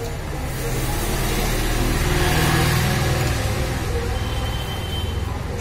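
A road vehicle passing by, its engine hum and tyre noise swelling to a peak about halfway through and then fading.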